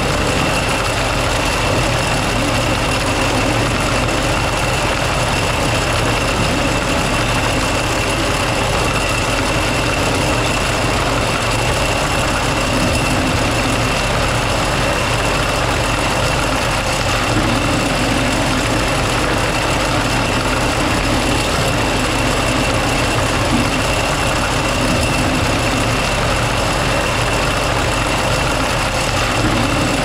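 Engine-driven harvest machinery running steadily: a constant engine drone with a steady high-pitched whine over it.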